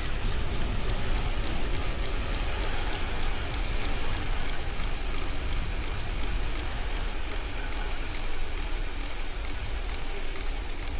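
Steady rush and low rumble of wind on the microphone while riding a bicycle, mixed with road noise.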